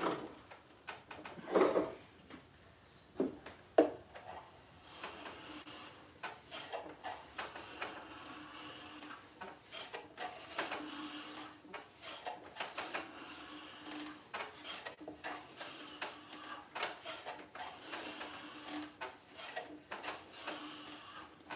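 Hand plane shaving the side of a wooden drawer in a quick run of short strokes, trimming it to fit its pocket. A few sharp knocks come in the first four seconds.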